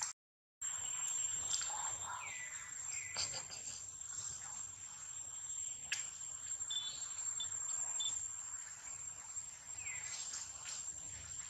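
Steady, high-pitched drone of insects, with a few short falling chirps over it. The sound cuts out for about half a second at the very start.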